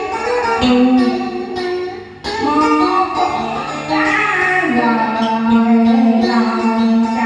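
A Vietnamese song: a woman singing a slow melody with held notes over guitar accompaniment.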